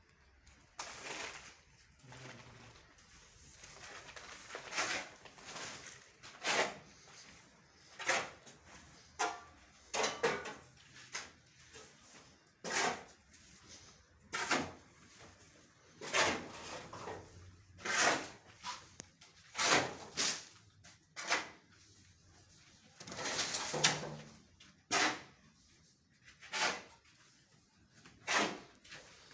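Tile-laying work: a series of short scraping and knocking strokes at an irregular pace, about one every second.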